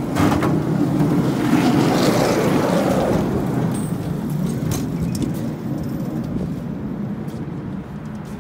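Road traffic on the bridge: a vehicle passes close by with a rushing noise that is loudest about two seconds in and then slowly fades. A few light clicks come near the end.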